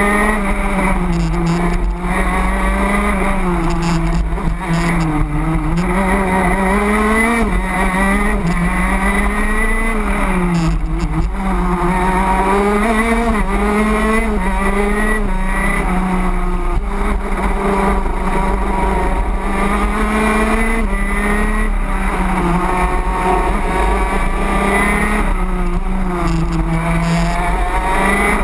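On-board sound of a racing kart's two-stroke engine at full song, its revs climbing along the straights and dropping back into the corners, over and over through a lap.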